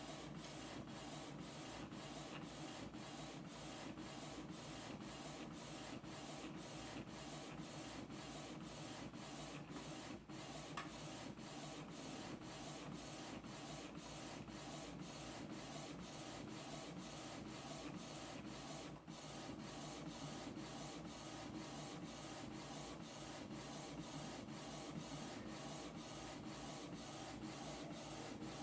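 Canon TS6220 inkjet printer printing a full-page photo on glossy paper: a steady mechanical whir of the print head carriage, with brief pauses about twice a second as the head reverses between passes.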